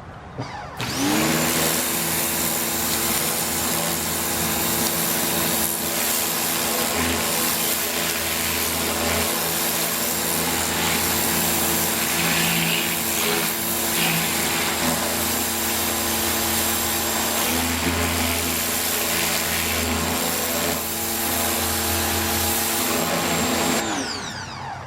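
Ryobi 1600 PSI electric pressure washer starting up about a second in, its motor and pump running with a steady hum over the hiss of the water jet. It winds down and stops near the end.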